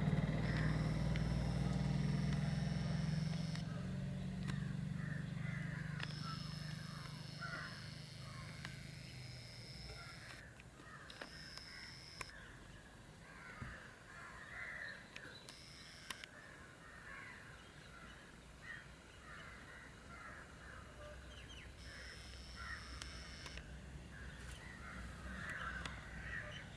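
Birds calling outdoors with many short, repeated notes, while a passing vehicle's low rumble fades away over the first several seconds.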